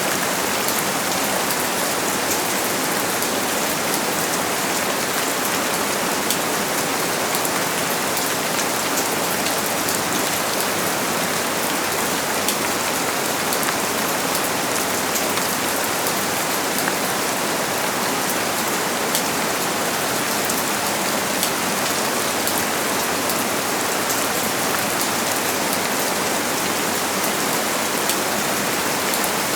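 Steady rain falling and pattering on a surface, an even hiss with many fine drop ticks and no thunder.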